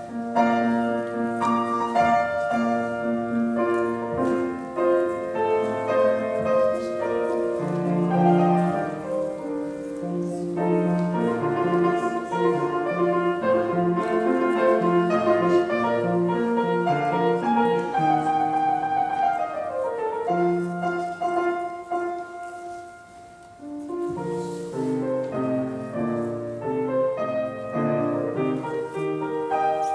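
Bassoon and piano playing classical music together, starting right at the beginning. There is a descending run a little before twenty seconds in and a brief quieter stretch a few seconds later before the music picks up again.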